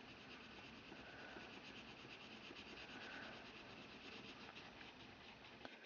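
Faint scratching of a Top Model skin-tone colored pencil on drawing paper, shaded in a quick, even rhythm of short back-and-forth strokes.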